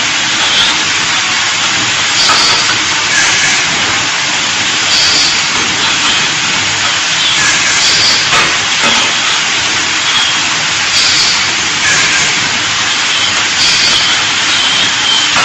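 Laser welding machine for metal channel letters running: a steady loud hiss with a short brighter burst about every second and a half, in step with the successive weld pulses.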